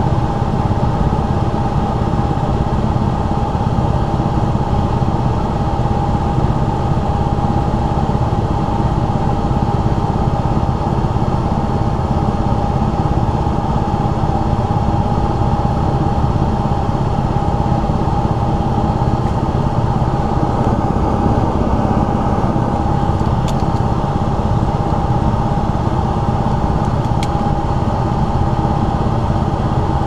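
Air conditioner's indoor air handler running steadily: the blower and air rushing through the evaporator coil cabinet, with a constant whine over a low rumble.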